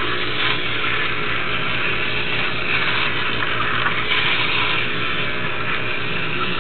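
Small electric motor and plastic gearbox of a battery-powered walking toy robot, running with a steady whir as it walks.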